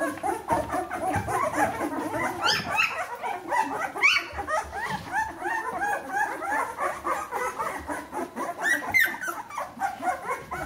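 Two-week-old Bernese Mountain Dog puppies squeaking and whimpering: many short, high squeals overlapping without a break, with a few louder rising yelps about two and a half, four and nine seconds in.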